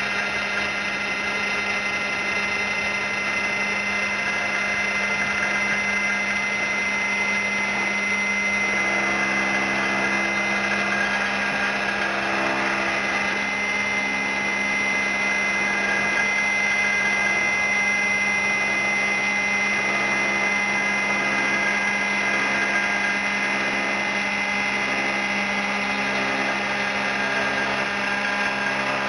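Taiga OS-1 log-rounding machine running with its rotary cutter milling a saddle notch into a log: a steady mechanical whine that turns rougher and noisier from about eight to fourteen seconds in.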